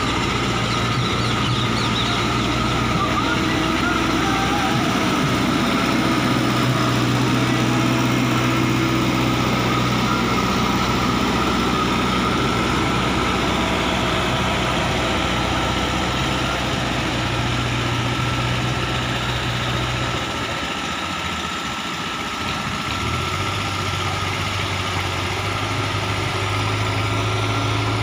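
JCB 3DX backhoe loader's diesel engine running steadily as the machine drives and grades a dirt road with its loader bucket. About twenty seconds in the engine note falls away for a moment, then settles back to a steady, slightly lower note.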